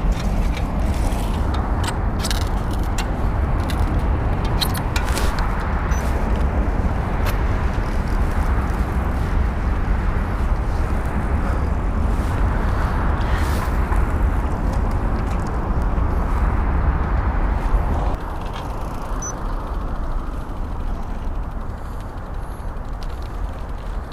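Wind rushing over the camera's microphone while riding a road bike, mixed with tyre and street-traffic noise; the rush eases a little about 18 seconds in.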